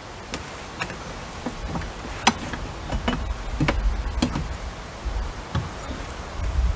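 Hammer striking a cat's paw nail puller to dig under and pry out a nail in a window's nailing flange: short, sharp metal taps at uneven intervals, about a dozen, with one louder strike a little over two seconds in.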